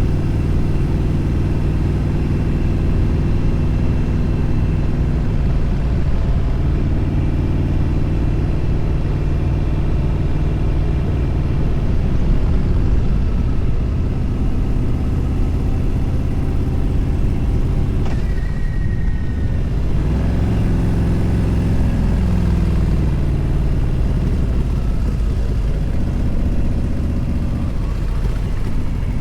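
Motorcycle engine running at highway speed under heavy wind rush. About eighteen seconds in the engine note drops away briefly, then picks up again and climbs in pitch as it accelerates.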